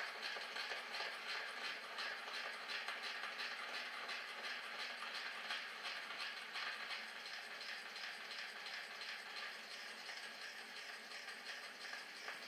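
Hiss and crackle of an old gramophone record's worn surface as it turns, with a regular repeating swish.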